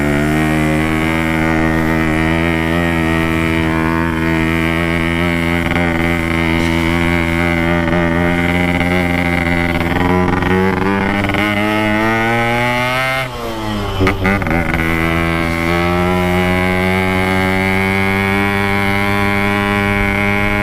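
Yamaha RX-King's 135cc two-stroke single-cylinder engine running while riding, its pitch slowly climbing. About two-thirds of the way through the pitch drops sharply, then climbs again.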